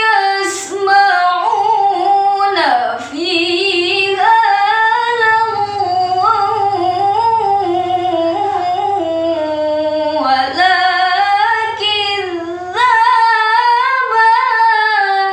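A young woman's voice reciting the Quran in the melodic, chanted tajwid style: long ornamented phrases whose pitch wavers and slides, broken only by a few short breaths. The voice stops suddenly at the end.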